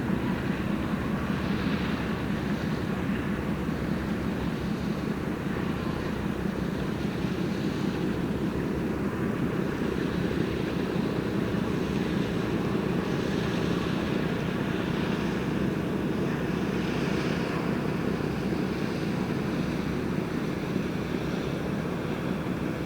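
A fishing boat's engine running steadily as the boat comes back into port, over a constant low roar.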